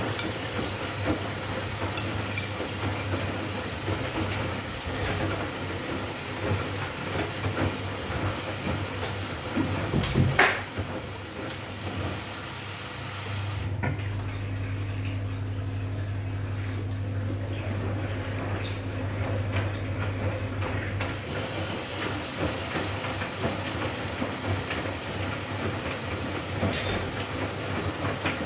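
Arçelik front-loading washing machine in its intermediate rinse: the drum tumbles wet laundry, with water sloshing and clothes clattering over a steady hum. A loud thump comes about a third of the way in. Soon after, the sloshing stops for several seconds, leaving only the steady hum, before the tumbling resumes.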